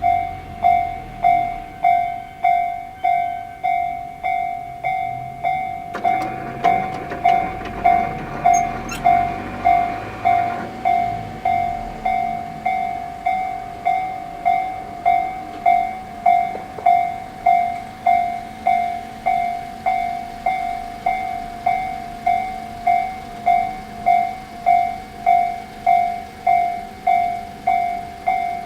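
Japanese railway level-crossing alarm of the Tobu 'sound C' electronic type in its slow-tempo version, starting up and dinging steadily at about one and a half strikes a second. About six seconds in, a rushing noise joins it for around four seconds.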